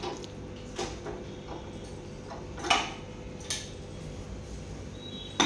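A few scattered knocks and clicks as the elbow arm attachment is taken off a CPM (continuous passive motion) machine and handled, with the loudest knock about two and a half seconds in, over a faint steady hum.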